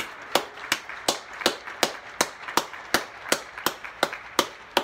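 A person clapping hands close by at a steady beat, nearly three claps a second, over the softer, continuous applause of many neighbours clapping.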